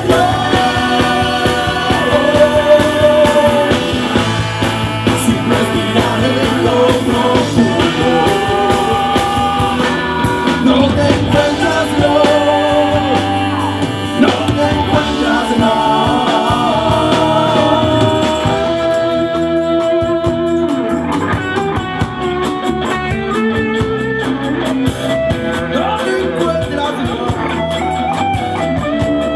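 Live blues-rock band playing, with electric guitars, bass guitar and drums.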